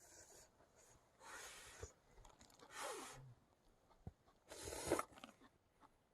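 Three short, noisy slurps of ramyeon noodles, each about half a second long and a second or more apart.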